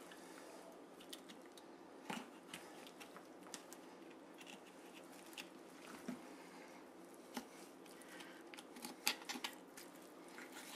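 Knife cutting through raw turkey meat and joints while the bird is boned out: faint, scattered small clicks and soft cutting sounds over a low steady room hum.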